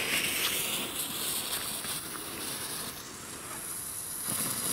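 Small Nico 'Irrlichter' ground firework hissing and fizzing as its lit fuse burns down and it starts throwing sparks, the hiss shifting higher about three seconds in, with a few faint crackles.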